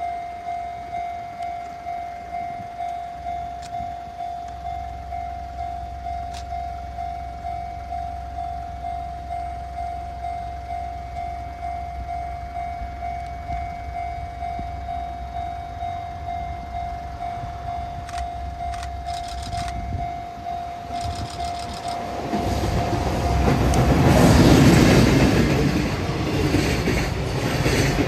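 Japanese level-crossing warning bell ringing in a steady repeating ding. About 22 seconds in, an EF210 electric freight locomotive hauling container wagons arrives. Its rumble and wheel clatter grow loud and drown the bell, loudest around 24 seconds, as the container wagons roll through.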